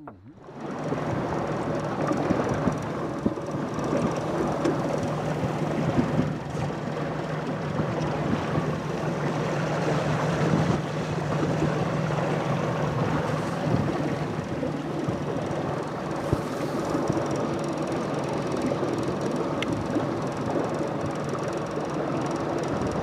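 Boat's outboard motor running steadily with the boat under way, its low engine tone mixed with the rush of wind and water.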